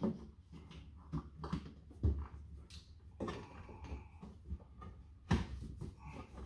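Scattered rustles, scrapes and knocks of hands working a sheet of sound-deadening mat into the inner cavity of a Toyota GR Supra door, with a couple of louder thumps against the door's sheet metal.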